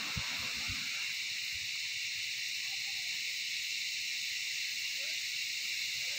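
Steady, high-pitched drone of forest insects, unchanging throughout, with a few soft footfalls on a dirt path in the first two seconds.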